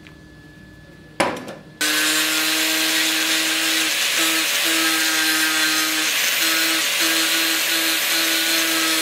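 Angle grinder running steadily as it grinds a small wooden handle piece held against it, a steady whine over harsh grinding noise. A short rasp comes just before it settles in, about two seconds in.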